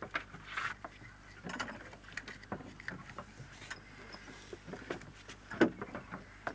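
Irregular clicks, knocks and rustling as a small sea fish is handled by hand on a boat, with one sharper knock a little after halfway.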